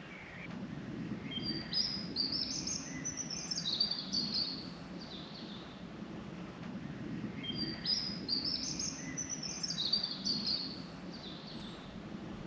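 A songbird singing two phrases of quick, stepped high notes, each about three to four seconds long and about six seconds apart, over a low, steady background rumble.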